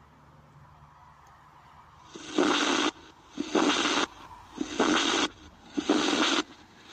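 Footsteps crunching on gravel at a slow walking pace, about one step a second, starting about two seconds in. Before them, the faint hum of a passing car fades away.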